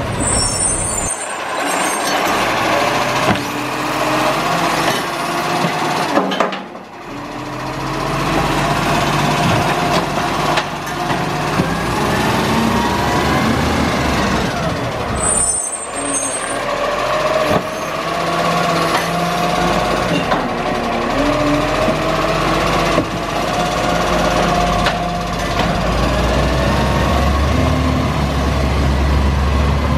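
Garbage truck's diesel engine running, its pitch rising and falling, with two short hisses of the air brakes, one near the start and one about halfway through. The engine's low rumble grows louder near the end.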